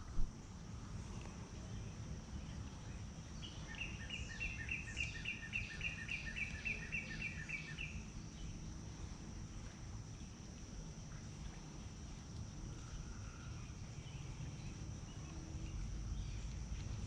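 Creekside outdoor ambience: a steady high-pitched insect drone, with a bird giving a rapid run of repeated chirps, about four notes a second, for roughly four seconds beginning a few seconds in.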